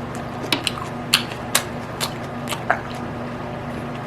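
Close-up wet chewing and lip smacking, short sharp smacks coming every half second or so over a steady low hum.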